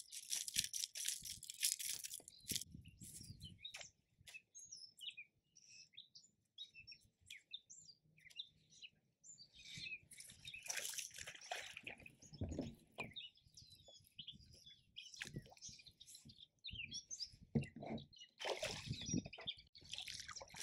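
Birds chirping and singing, with bursts of water splashing near the start and again near the end as a hooked fish thrashes at the surface.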